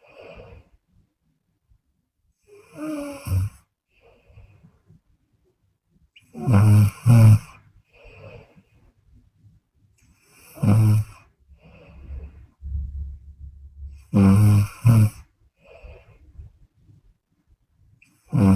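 A woman snoring in her sleep. Loud, low snores come about every four seconds, several of them split into two quick pulses, with faint breaths in between.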